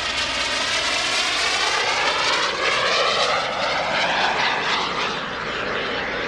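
SubSonex mini jet's PBS TJ-100 turbojet passing in flight, a steady rushing jet whine with a sweeping, phasing tone as it goes by. It grows louder for a few seconds, then eases off near the end.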